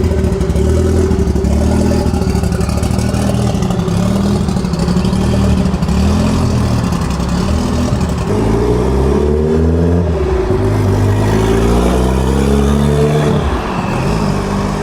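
Car engine revving: a steady rumble at first, then blipped up and down several times in the second half, each rev rising and falling in pitch.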